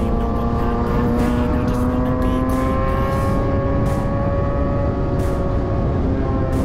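Kawasaki Ninja sportbike's inline-four engine running at high revs while riding, its note rising slowly over the first few seconds and then holding steady, under heavy wind rush on the microphone.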